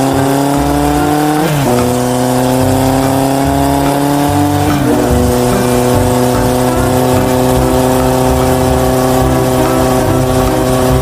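Electronic engine-revving sound effect: a buzzy synthetic motor tone climbing slowly in pitch, dropping back suddenly about one and a half seconds in and again about five seconds in, then climbing once more.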